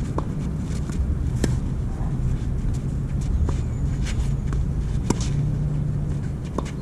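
A tennis rally: sharp racket strikes and ball bounces every second or so, over a steady low rumble.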